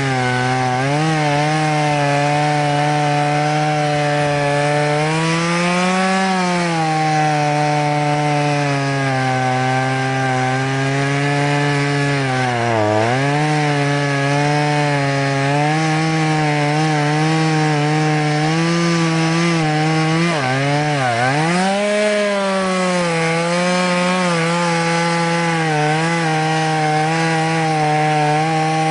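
Stihl MS 170 two-stroke chainsaw running at high revs while cutting wood, its pitch wavering as the chain bites. The engine bogs down in two deep dips, about thirteen and twenty-one seconds in, and recovers each time.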